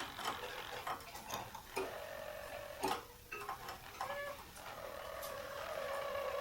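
Harzer Roller canary singing its rolling song: long, low trilled tours broken by short clicking notes, with a brief dip about three seconds in before the trills resume.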